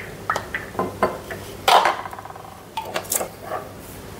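A spoon, bowl and sauce bottles clinking and knocking while sauces are measured out by the tablespoon: a string of short, separate clicks and knocks, the loudest about a second and a half in.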